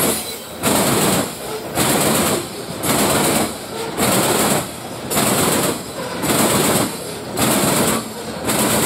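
Freight train cars rolling past at speed, a steady rhythm of noisy surges about once a second as car after car goes by.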